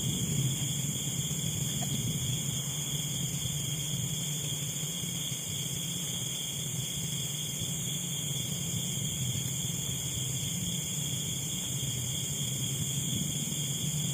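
Steady high-pitched chorus of night insects, several unbroken shrill tones at once, over a low steady drone.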